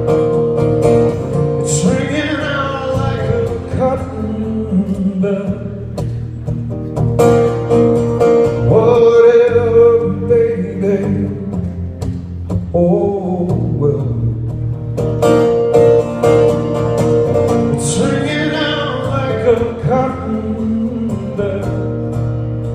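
A man singing to his own acoustic guitar accompaniment in a live solo performance.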